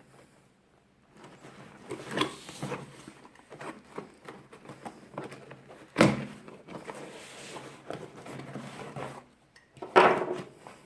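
Cardboard parcel being opened and handled by hand: scattered rustles, scrapes and light knocks, with a sharp louder knock about six seconds in and another near the end.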